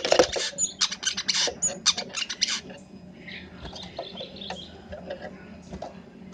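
Brown-throated sunbird singing: a fast, loud run of sharp, high chirps for the first two and a half seconds, then softer, thinner notes and short twittering glides. It is a chattering song full of borrowed phrases from other birds.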